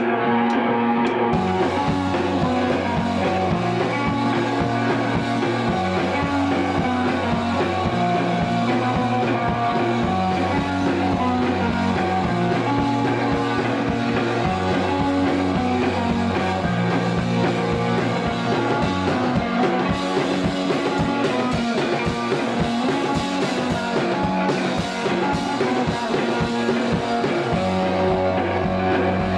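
A rock band playing a song live, guitar to the fore over a low line that steps between notes every couple of seconds.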